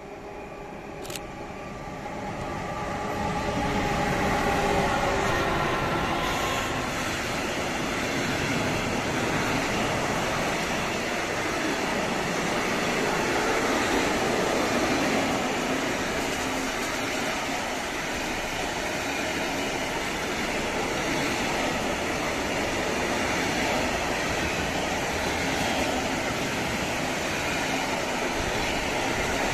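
A freight train of truck semitrailers on pocket wagons, hauled by two Siemens electric locomotives (189-class E189-023 and X4E-653), approaches and passes. It grows louder over the first few seconds, with a few steady electric tones from the locomotives, then settles into a continuous rumble and clatter of wagon wheels on the rails.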